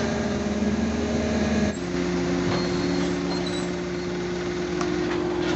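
Large truck engines running steadily at low revs close by; the engine note changes abruptly about two seconds in.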